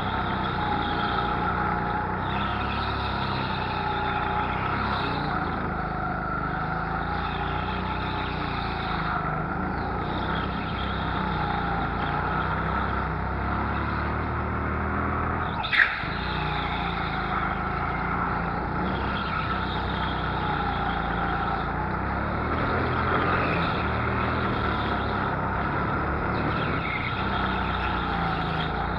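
Go-kart engine heard from on board, running continuously with its pitch rising and falling again and again as the kart speeds up and slows for the bends. A single sharp knock about sixteen seconds in.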